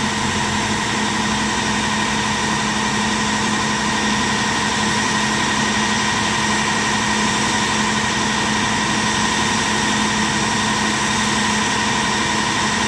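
Heavy machinery running steadily, a loud constant hum that does not change in pitch, from the machinery that tilts and levels a large film-set platform.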